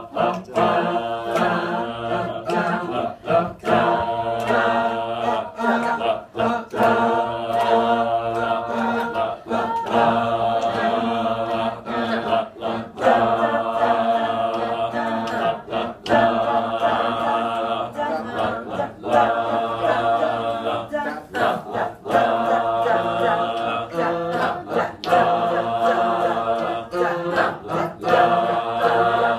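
A group of adults singing together without accompaniment, holding sustained notes broken into a steady repeated rhythm.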